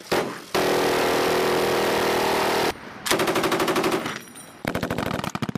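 An M134 minigun fires a continuous burst of about two seconds, its rate so high that the shots merge into one steady buzz. Then a belt-fed light machine gun fires two rapid bursts of separate shots, each just under a second long.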